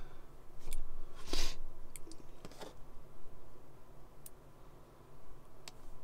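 Scattered small clicks and taps of fingers and a small screwdriver handling a tiny M.2 SSD retaining screw on a laptop's metal and plastic chassis, about six in all, the sharpest about a second and a half in.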